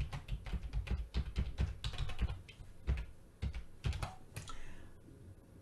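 Typing on a computer keyboard: a quick, uneven run of keystrokes entering a password, stopping about four and a half seconds in.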